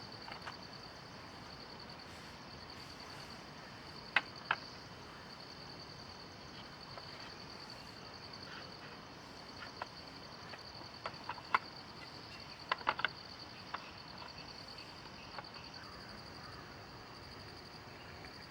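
A steady, high-pitched chorus of crickets or similar insects in a forest, with a faint hiss beneath. A few sharp taps or clicks cut through it: two about four seconds in, a few more after ten seconds, and a quick cluster around thirteen seconds.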